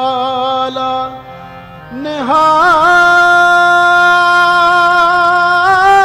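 Gurbani kirtan: a man singing long held notes over harmonium. The voice drops away briefly about a second in, then slides up into one long steady note that holds to the end.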